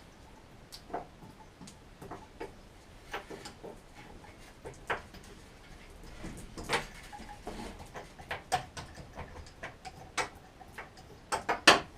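Irregular light clicks and taps, with a quick run of louder knocks near the end.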